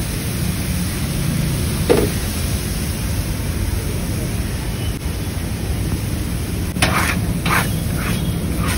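Prawn masala sizzling on a large flat griddle: a steady frying hiss over a low rumble, with a few short sharp clatters near the end.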